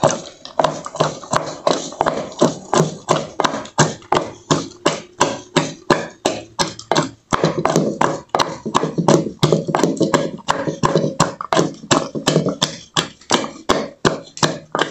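Wooden spoon beating a thick, hot rapadura-and-peanut candy mixture in a blackened iron pot, knocking against the pot's sides: a steady run of knocks with sticky scrapes, about three strokes a second. This is the hard beating that makes the candy lighten and begin to set.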